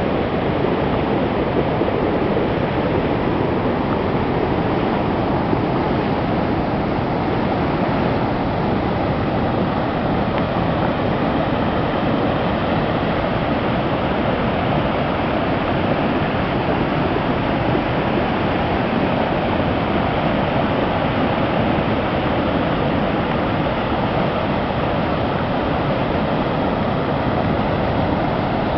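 Rushing water of a large waterfall, a loud, steady noise with no breaks.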